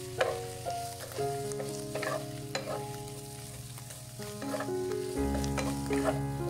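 Shrimp, button mushrooms, onion and garlic sizzling as they fry in a non-stick wok, with a spatula stirring and scraping against the pan in repeated short clicks. Soft background music with held notes plays underneath.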